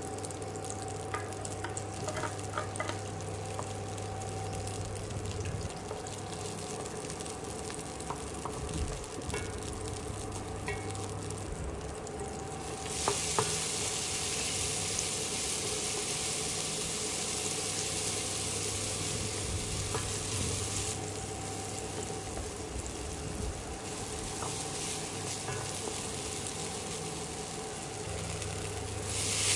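Butter sizzling in a stainless steel pan, with sliced garlic frying in it, and a wooden spatula stirring and scraping now and then. The sizzle grows louder a little under halfway through, eases off later, and rises again near the end. A steady low hum runs underneath.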